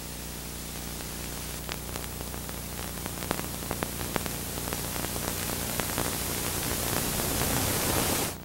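Steady hiss with a low mains hum from an old analog broadcast recording in a gap with no programme sound, with faint scattered crackles from about a second and a half in. The noise grows slowly louder toward the end and cuts off suddenly.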